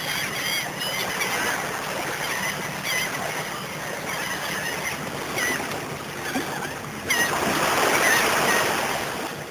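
Outdoor ambience: short bird chirps repeating over a steady rushing noise, which swells louder about seven seconds in.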